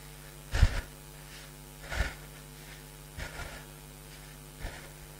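A man breathing out hard in short, forceful puffs, about one every second and a half, while pedalling a spinning bike against heavy resistance.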